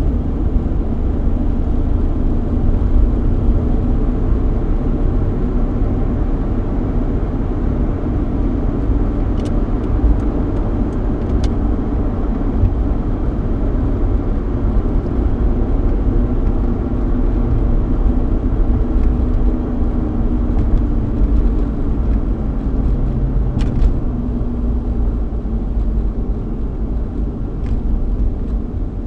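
Cabin interior of a 3.8-litre V6 Ford Mustang cruising: steady tyre and road rumble with the engine's even hum underneath. A few faint ticks come through now and then.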